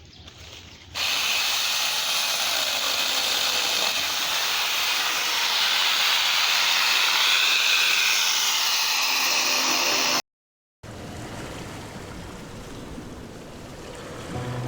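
Angle grinder fitted with a mini chainsaw adapter running, a loud steady rushing noise that starts about a second in and stops abruptly about ten seconds in.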